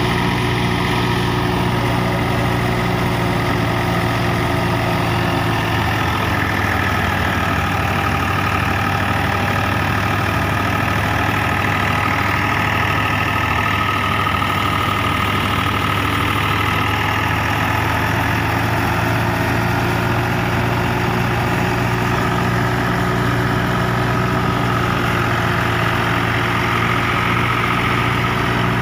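Massey Ferguson 260 tractor's three-cylinder diesel engine running steadily under load, driving a stationary wheat thresher that is running along with it.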